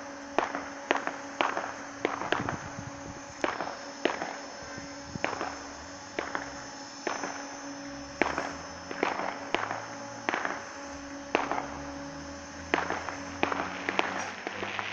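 A string of sharp cracks and pops at irregular intervals, one to three a second, over the steady electrical hum of an electric train standing at the platform. A low rumble joins about eight seconds in.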